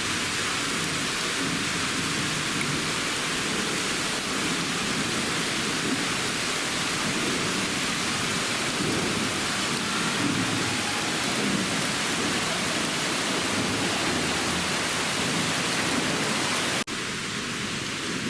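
Loud, steady rushing roar of a waterfall heard close by from a small boat, with spray and falling water hissing. Near the end it drops suddenly to a somewhat lower level and carries on.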